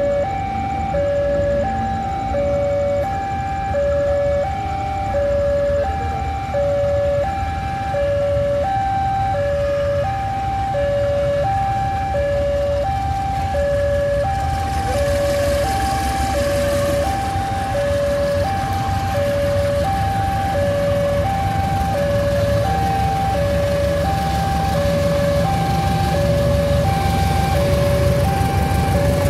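An electronic two-tone warning alarm, of the kind used at railway level crossings, alternates steadily between a high and a low tone, each held about half a second. Under it runs the low rumble of a KAI CC201 diesel locomotive, which grows louder near the end as it approaches.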